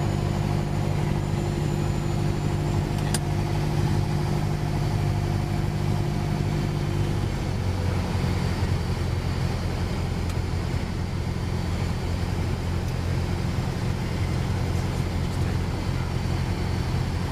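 Light aircraft's piston engine and propeller running steadily, heard inside the cockpit, with the engine note changing about seven seconds in. A single sharp click about three seconds in.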